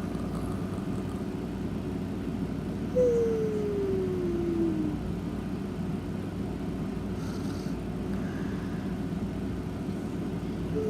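Whistling snore: one long whistle falling in pitch over about two seconds, a few seconds in, with another starting at the very end, over a steady low hum.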